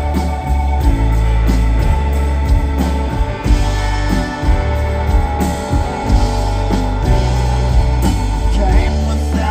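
A rock band playing live, with electric guitar, bass guitar and drums, recorded from within the audience.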